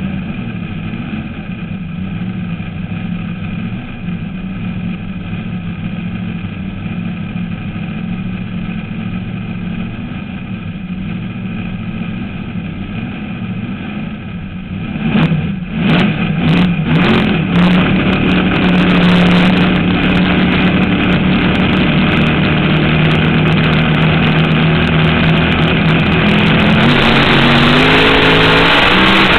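Supercharged alcohol-burning engine of a fuel altered drag car idling roughly, heard from inside the cockpit. About halfway through it is revved in several sharp blips, then held louder at a steady higher speed, and near the end its pitch rises as the revs climb.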